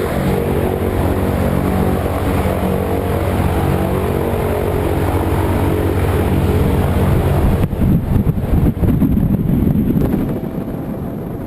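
Propeller aircraft engine droning steadily, heard from inside the cabin. About eight seconds in, the sound switches abruptly to loud, rough wind noise buffeting the microphone, which fades near the end.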